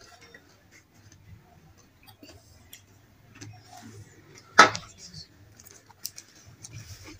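Scattered small crackles and clicks of plastic snack packets being handled and fried nimco being poured into a hand and chewed, with one louder, sharp noise about four and a half seconds in.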